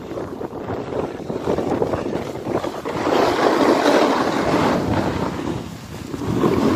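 Wind rushing over the microphone of a skier's camera during a downhill run, mixed with the scrape of skis on packed snow. The noise swells and fades, loudest from about three to five seconds in.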